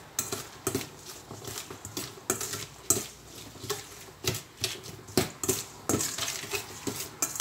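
A metal spoon clinking and scraping in a stainless steel bowl as a salad of sliced vegetables is tossed, in irregular knocks a few times a second.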